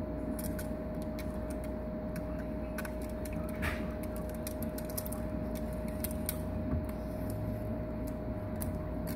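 Turtle's claws clicking and scraping on a rock ornament as it scrambles to climb out of the water, many small irregular clicks, over a steady background hum with a constant tone.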